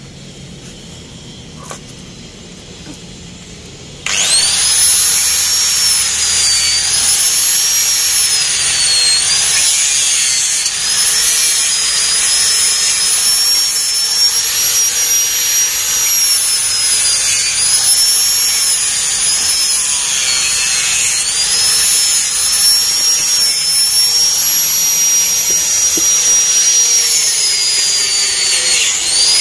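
Electric angle grinder switched on about four seconds in, then running at high speed as its disc cuts along the edges of a fiberglass loster mold. Its whine dips in pitch again and again as the disc bites under load and rises back as it eases off.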